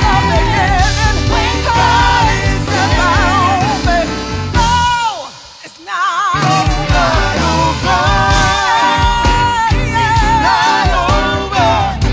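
Live gospel band and singers performing: voices with vibrato over bass and drums. About five seconds in the band drops out briefly under a voice sliding down in pitch, then the full band comes back in.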